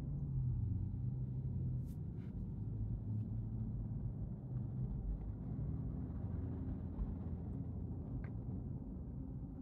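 Low, steady rumble of cross traffic passing outside, heard muffled from inside a stopped electric car's closed cabin, with a few faint clicks.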